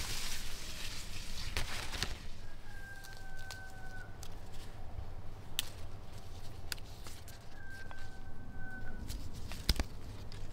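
A rooster crowing twice, each crow a long call of about a second and a half. A few sharp snaps and leaf rustles come from walnut leaves and green walnuts being picked off the tree by hand.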